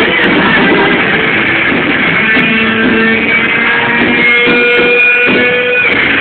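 Rock band playing live, loud and dominated by electric guitar, with held notes that break off just before the end. Recorded on a phone, so the sound is dull with no treble.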